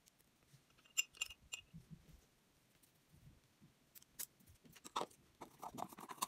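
Faint sharp clicks and light rustling from handling painting gear: a brush knocking against a glass water jar, then a jar of paint being picked up. A small cluster of clicks comes about a second in and the rustling grows near the end.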